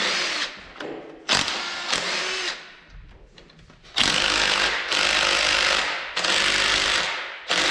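Impact wrench backing out the 8 mm rocker arm bolts on an LS 6.0 V8's cylinder heads: a few short bursts, then two longer runs in the second half.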